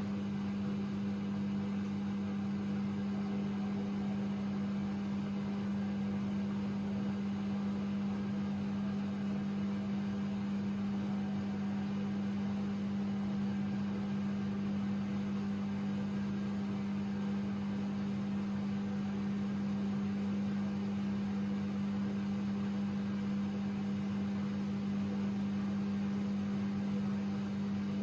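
AEG Lavamat 6610 washing machine running with a steady, unchanging hum.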